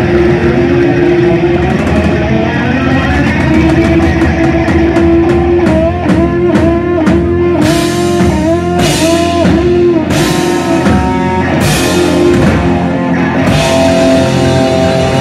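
Live rock band playing electric guitars, bass guitar and drum kit. Sustained guitar notes bend up and down, and cymbals crash repeatedly through the second half.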